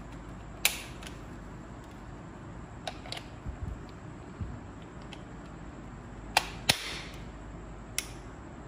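Sharp plastic clicks and knocks as a plug-in socket tester is handled and pushed into a 13 A wall socket to check its wiring. There are about six clicks, with the loudest two in quick succession about six and a half seconds in.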